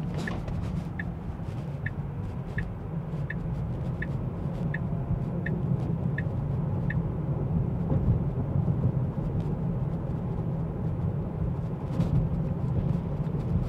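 Steady road and tyre noise inside the cabin of a Tesla Model 3 electric car driving along. For about the first seven seconds a turn-signal indicator ticks evenly, about once every 0.7 s, then stops.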